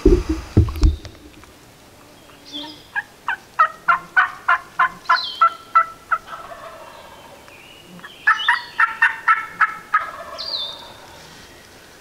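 Turkey yelping: two runs of evenly spaced yelps, about three a second, each run lasting a few seconds. It follows a few loud handling thumps in the first second.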